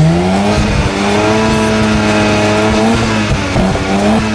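Car engine revving up and then held at steady high revs, turning rougher near the end.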